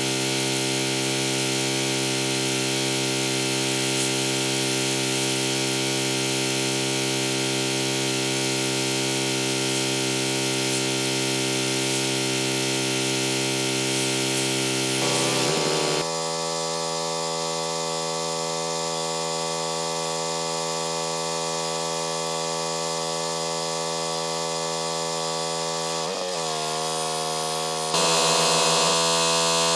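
Pressure washer running steadily with a motor drone. Its pitch drops about halfway through and dips briefly again near the end, and a louder hiss comes in near the end.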